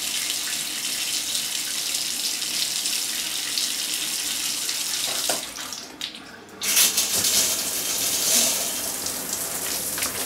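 Steady rush of running water, like a shower spraying, a recorded sound effect rather than the dry showerhead in hand; it drops away briefly about six seconds in and comes back a little louder.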